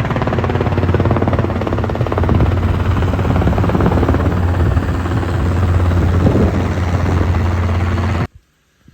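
Small back-up generator engine running steadily with a fast, even throb, after its leaking fuel line has been replaced. It cuts off suddenly near the end.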